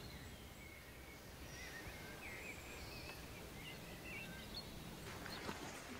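Faint birdsong, a few short warbling phrases, over a steady outdoor background hiss, with a few faint rustles near the end.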